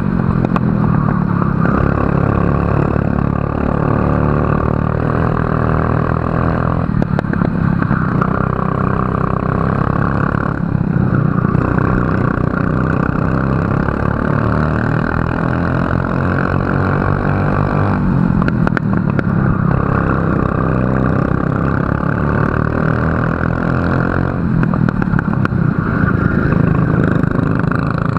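A racing kart's engine at speed, heard up close, its pitch rising as it accelerates down the straights. About four times it drops sharply as the throttle is lifted for a corner, then climbs again.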